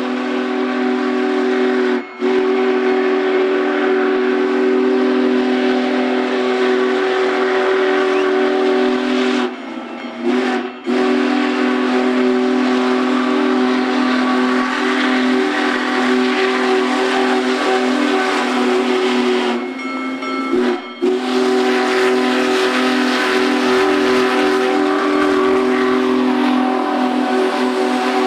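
Whistle of Union Pacific Big Boy steam locomotive 4014, blowing long, loud blasts of a held chord. There is a brief break about two seconds in and longer breaks about ten and about twenty seconds in.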